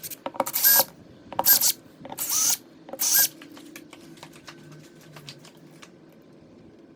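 A screwdriver working the screws of the light switch's wall plate: four short rasping strokes about a second apart, then scattered light clicks.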